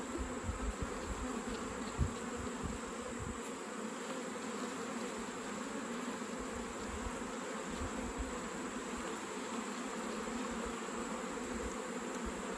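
Honeybees buzzing steadily around an open hive, with bees in the air. A few low thumps come in the first three seconds.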